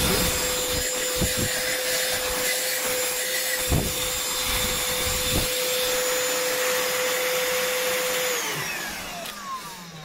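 Ferrex 20-volt single-speed cordless handheld vacuum running with a steady whine and rushing air as its nozzle is worked over a fabric car seat, with a few light knocks. About eight and a half seconds in it is switched off, and the motor winds down in a falling whine.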